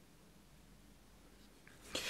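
Near silence: room tone, with a voice starting at the very end.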